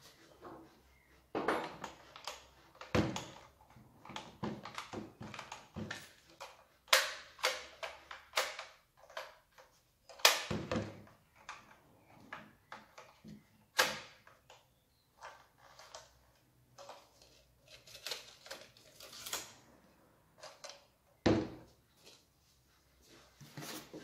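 Handling noise: irregular knocks, clicks and rustles as a cordless chainsaw and cardboard boxes are moved about and set down on a wooden workbench, with a handful of louder thuds.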